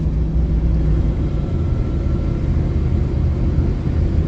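Chevy C1500 pickup engine pulling hard under full throttle, heard from inside the cab as a steady low rumble with road noise. The engine note changes about a second and a half in.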